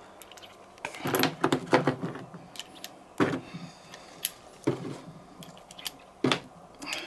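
Brass cartridges clicking and clinking as they are loaded by hand into a revolver's open cylinder: sharp metallic clicks, a quick flurry about a second in, then single clicks every second or so.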